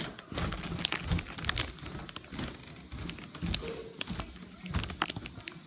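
Rustling, scraping and dull knocking of a phone being handled and carried with its microphone covered; irregular clicks and scuffs with a few low thumps.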